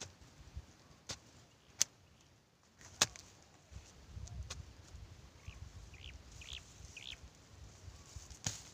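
A wooden digging stick striking the soil in several sharp knocks while digging planting holes, three in the first three seconds and one near the end. A few short bird chirps come in around the middle, over a low rumble.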